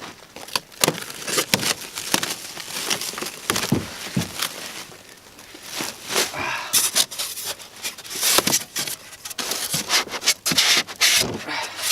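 Plastic and paper packaging being pulled off and handled: irregular crinkling, rustling and crackling with scrapes and knocks.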